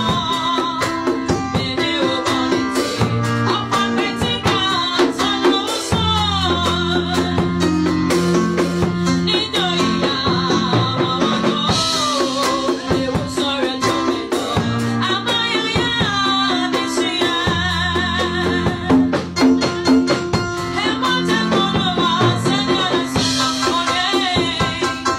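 Gospel song: voices singing with vibrato over drums, guitar and a bass line at a steady beat.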